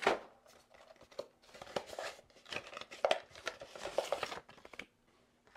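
A Noctua fan's cardboard box and clear plastic tray being handled and opened: irregular rustling, crinkling and small clicks of the packaging, dying away near the end.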